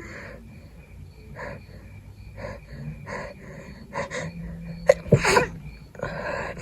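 A person with a head cold sniffling and breathing through a congested nose several times, then sneezing once, loudly, about five seconds in, followed by another noisy breath near the end.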